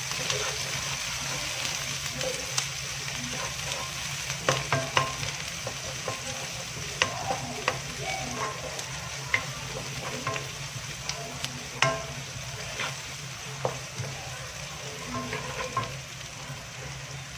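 Sliced onions sizzling in hot oil in a non-stick wok while a wooden spatula stirs them, with a steady frying hiss. The spatula knocks sharply against the pan every second or so.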